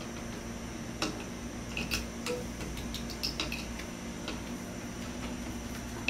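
A dozen or so short, sharp clicks and taps, irregularly spaced from about a second in, with a few brief chirp-like blips among them, over a steady background hum.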